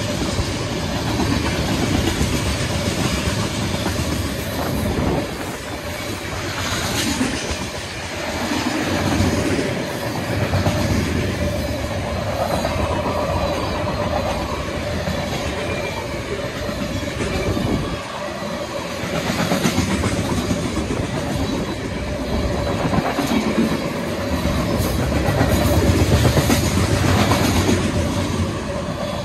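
Union Pacific freight train's cars (tank cars and covered hoppers) rolling past close by: a steady rumble of steel wheels on rail with occasional clacks and a thin steady whine running underneath.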